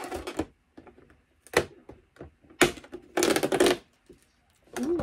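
Cardboard advent calendar door being pried open by hand: several sharp clicks and scrapes, then about three seconds in a longer rasp of cardboard lasting under a second.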